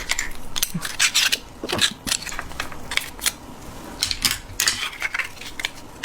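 Utensils and seafood shells clinking and clattering against dishes in an irregular run of short, sharp clicks, as seafood is picked out of a bowl of ramen.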